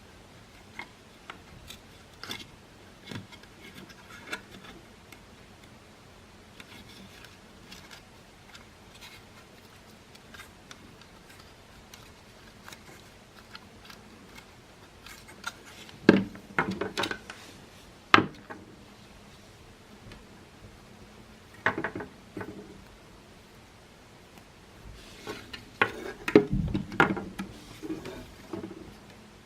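Scattered clicks, taps and knocks of the hard plastic parts of a Makita CL108FD cordless vacuum and small tools being handled during disassembly and reassembly. The sounds come in irregular clusters, loudest about halfway through and again near the end.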